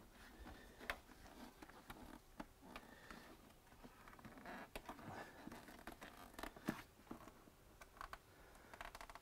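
Faint scraping, rubbing and scattered clicks of a plastic cold-air-intake airbox and its rubber edge seal being pushed and fitted into place by hand.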